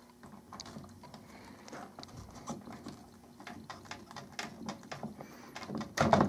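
Small irregular clicks and rattles of insulated spade connectors being wiggled off the terminals of a 12 V sealed lead-acid battery, with a louder knock near the end.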